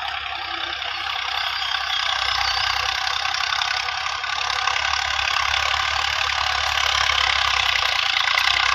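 Tractor engine running steadily while it pulls an implement across a tilled field, slowly growing a little louder.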